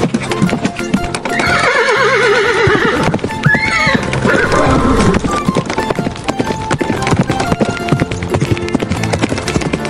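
A horse whinnying: a long quavering call falling in pitch about a second in, then a shorter call, while hooves clip-clop throughout. Background music plays underneath.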